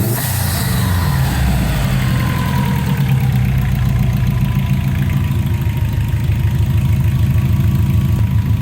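Turbocharged EJ205 flat-four engine of a Subaru Impreza GC8 idling with a steady low hum. A short hiss comes at the very start, and a high whine falls away over the first few seconds.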